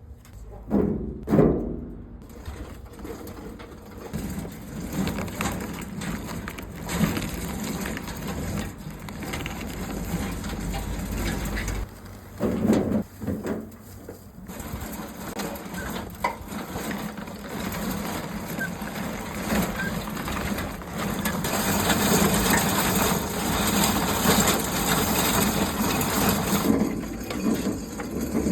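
Grifo DSM grape destemmer-crusher running and crushing grapes: a steady mechanical churning with occasional loud knocks, growing louder in the second half.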